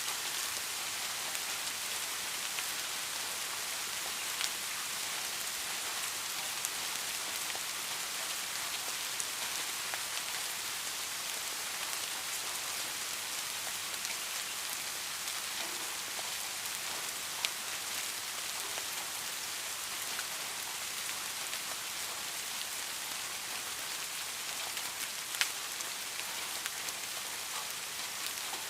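Steady rain, with a constant hiss of falling drops and scattered sharper drop hits standing out here and there.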